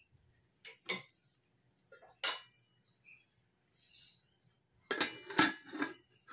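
Aluminium pot lid clattering against a metal frying pan as it is set on, a cluster of sharp metallic knocks with a little ringing about five seconds in, after a few lighter clicks.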